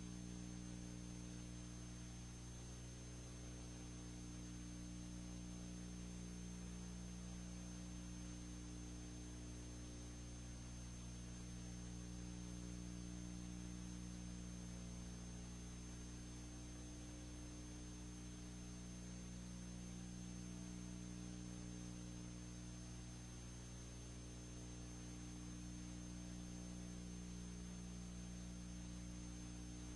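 Steady, faint electrical hum with a thin high-pitched whine and an even hiss, unchanging throughout. This is an empty soundtrack carrying only the background noise of the recording and transfer, with no other sound.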